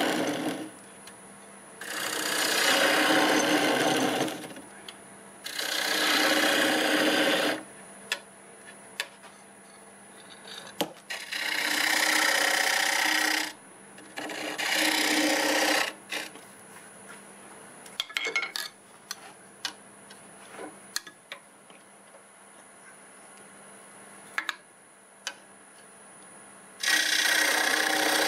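Turning gouge cutting into a spinning mimosa bowl blank on a wood lathe, carving a recess into its base. It comes as repeated cuts of about two seconds each. Between cuts the lathe runs on with a faint steady hum and a few light ticks.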